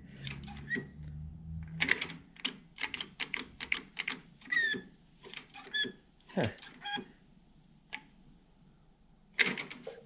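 Plastic safety button and bail lever on a Greenworks 40V lawn mower handle being pressed and pulled over and over, giving irregular clicks and snaps with a couple of brief squeaks. The controls are being worked to test whether the start cable moves.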